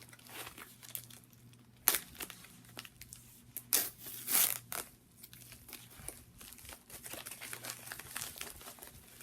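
A package being opened by hand: crinkling and tearing of packaging, with many small rustles and clicks, a sharp snap about two seconds in, and two longer tearing sounds around four seconds in.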